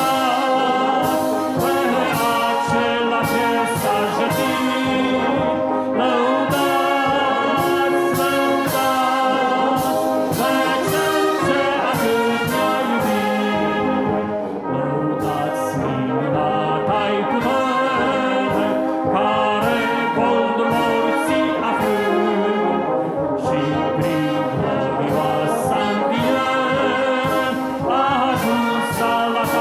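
Brass band of trumpets, trombones, horns and tubas playing a hymn in full chords, kept in time by a drum kit, with short breaths in the phrasing about halfway through and near the end.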